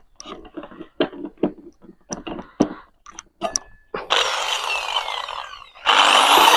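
A string of short knocks and clicks from handling the tool and workpiece. About four seconds in, an electric drill fitted with a cutting disc starts with a whine that falls in pitch as it slows. Near the end it starts again, louder, its pitch rising as it spins up.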